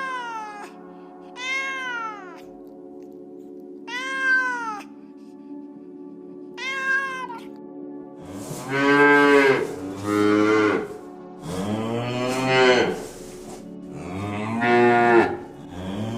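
Meow-like calls from a feline, over steady background music. First come four short, higher calls that each rise and fall in pitch. From about halfway through, a run of louder, lower, longer calls follows.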